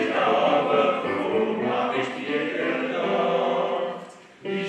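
Men's choir singing together in harmony, unaccompanied. The singing breaks off briefly a little after four seconds in, then the voices come in again.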